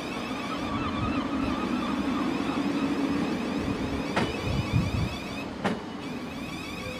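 Thameslink Class 700 electric multiple unit departing past at close range, its traction motors humming steadily. Two sharp clacks come from the wheels over the rail joints, about four and five and a half seconds in.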